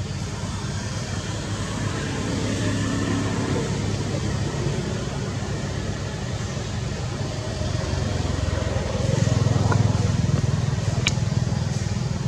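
Low engine rumble of passing motor vehicles, swelling about two seconds in and again about nine seconds in, with a single sharp click near the end.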